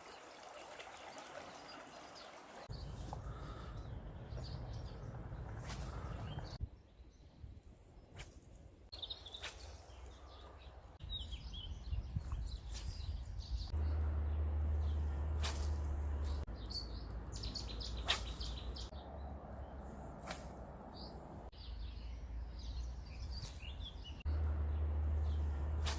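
Small birds chirping and calling at intervals over a steady low rumble, with a few sharp clicks.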